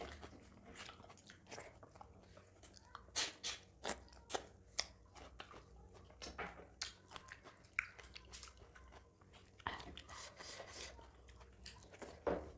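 Close-miked mouth sounds of people eating soft food by hand: chewing and wet lip smacks, heard as irregular sharp clicks.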